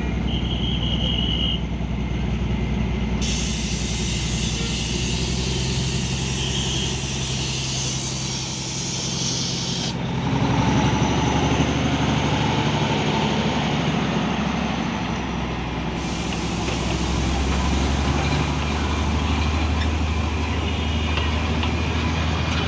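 Narrow-gauge NDM6 diesel locomotive idling with a steady low engine hum. A loud hiss comes in over it about three seconds in, cuts off sharply near ten seconds, and returns about sixteen seconds in.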